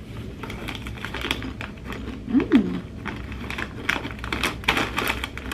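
Cheddar Doritos tortilla chips being bitten and chewed: a run of sharp, crisp crunches, thickest near the end.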